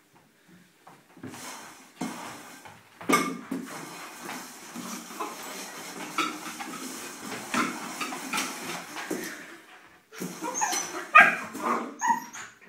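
Husky puppy barking, yipping and whimpering while it chases a plastic food bowl. The bowl clatters and scrapes on a tiled floor in a string of knocks, and the loudest barks come near the end.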